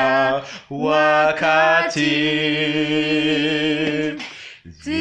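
A man and a woman singing a Swahili hymn together without accompaniment. They break briefly, then hold one long note from about two seconds in to about four seconds.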